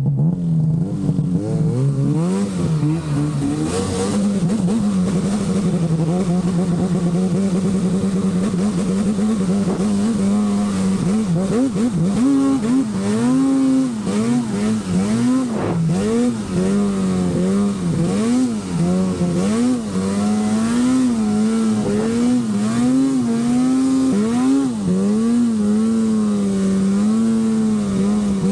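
Arctic Cat Alpha One snowmobile's two-stroke engine running under load through deep powder. The pitch holds steady at first, then rises and falls about once a second as the throttle is worked on and off.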